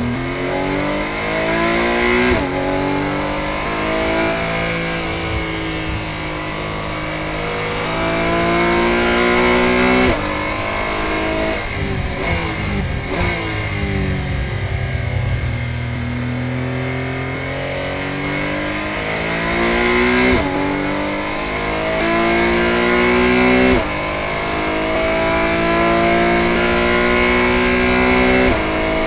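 Porsche 718 Cayman GT4 Clubsport's naturally aspirated flat-six engine accelerating hard at high revs, heard from inside the cockpit. Its pitch climbs steadily and drops abruptly at each upshift, four times. Near the middle it falls away under braking and downshifts before climbing again.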